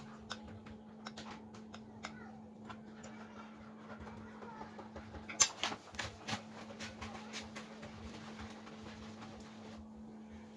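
Quiet tapping and clicking from coating a rolled risol: a spoon working a rolled risol through thin batter in a glass bowl, then the roll pressed into breadcrumbs. One sharper click comes about five seconds in, over a steady low hum.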